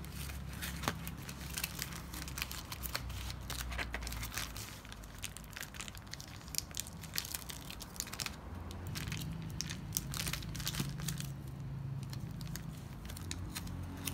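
Crinkling and rustling of paper packaging and a foil bubble mailer being handled, with many sharp, irregular crackles.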